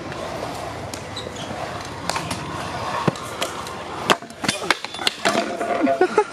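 Stunt scooter wheels rolling on concrete skatepark ramps, with sharp clacks of the scooter striking the concrete. From about four seconds in comes a run of hard clattering impacts as a rider falls, with voices near the end.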